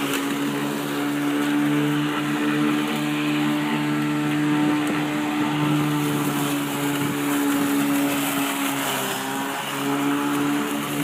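Electric lawnmower, modified to run without its battery, mowing: a steady motor-and-blade hum that dips briefly about nine seconds in before picking back up.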